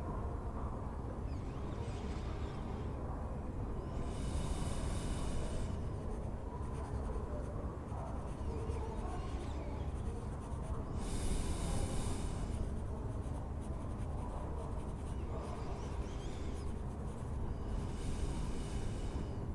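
Writing on paper: several short bursts of nib scratching, each lasting a second or so, over a steady low room rumble.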